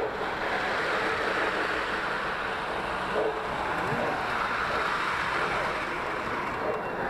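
Model trains running on a circular metal track close by, a steady rolling noise over the hubbub of a crowded exhibition hall.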